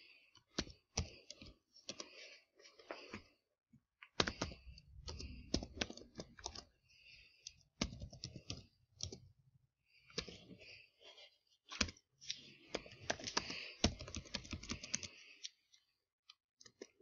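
Typing on a computer keyboard: quick irregular keystrokes in runs with short pauses, thinning out near the end.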